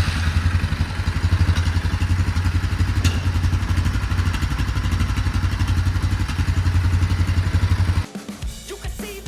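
Four-wheeler (ATV) engine running steadily after the starter relay fix, stopping abruptly about eight seconds in, where music begins.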